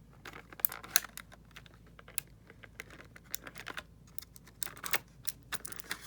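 Irregular light clicks and taps of small hard plastic pieces being handled and knocked together: tiny collectible figures and their packaging being taken out and fiddled with. The two sharpest clicks come about a second in.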